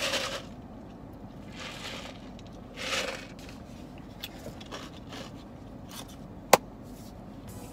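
A few short noisy sips from a foam drink cup, three in the first three seconds, then a single sharp click about six and a half seconds in, the loudest sound.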